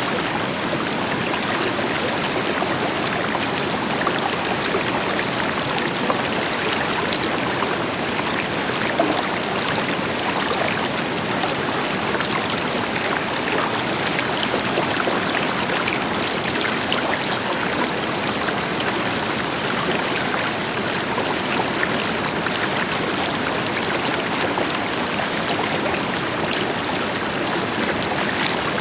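A river flowing over rocks, with a steady rushing and small splashes, and the deeper even rush of a waterfall underneath.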